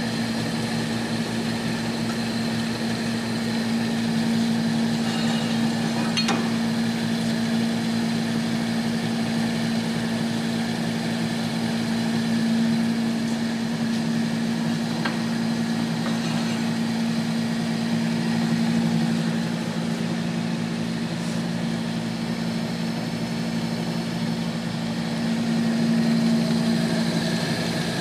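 Gardner 2V18 vertical double-end disc grinder running with its carrier and both grinding heads on: a steady electric-motor hum, with a faint tick now and then.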